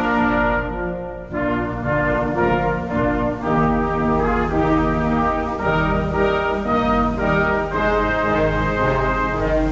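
Slow brass music: long held chords moving from one to the next, with a short lull about a second in.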